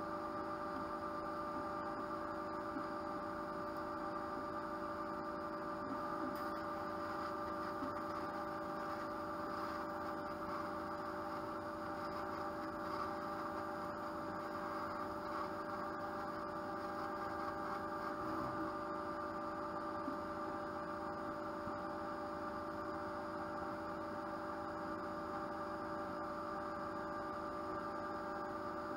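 80-watt CO2 laser cutter running with a steady hum made of several fixed tones over a light hiss.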